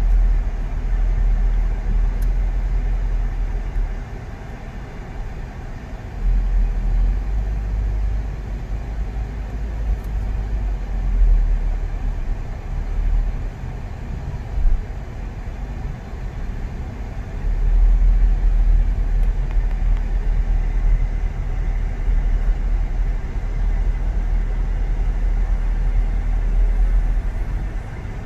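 A car on the move: a low road and engine rumble that swells and eases over several seconds, with a steady hiss over it.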